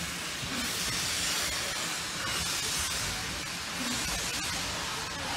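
Steam locomotive at the head of the train hissing with escaping steam as the train pulls away, a steady hiss.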